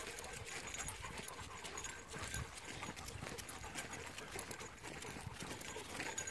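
Walking footsteps crunching on a dry dirt trail, with dogs trotting alongside and a dog panting.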